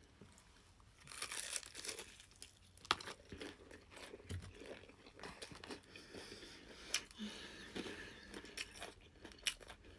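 Close-up eating sounds: crunching and chewing on crispy fried chicken, with sharp crackles as the breaded skin is bitten and torn.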